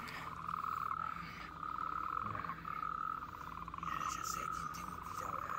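Frogs trilling at night: rapid pulsed trills at one steady pitch, each about half a second long, repeating about once a second.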